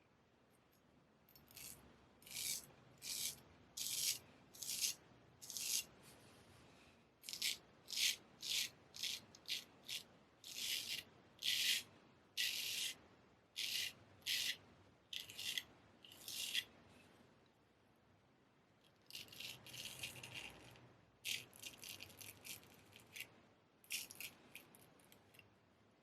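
Straight razor making short, repeated scraping strokes, a bit over one a second. A brief pause comes about two-thirds of the way in, after which quicker, closer-spaced strokes follow.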